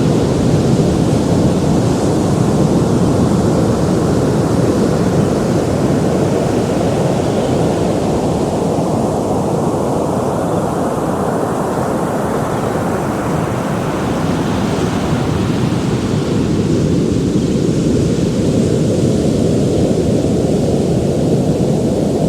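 Ocean surf: waves breaking and washing in a continuous rush. The hissing part fades about halfway through and swells again a few seconds later as another wave comes in.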